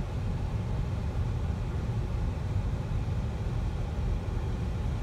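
Steady low rumble of a vehicle driving, heard from inside the cab: road and wind noise with no sudden events.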